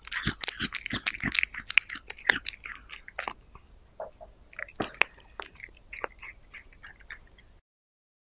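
A cat chewing food close to the microphone: fast, crisp clicks of chewing, thinning out about three seconds in and picking up again, then cutting off abruptly near the end into silence.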